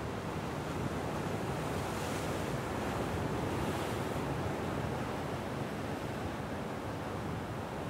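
Ocean surf breaking and washing over the rocks of a rocky point as a steady rushing noise, swelling slightly about two seconds in and again around four seconds in.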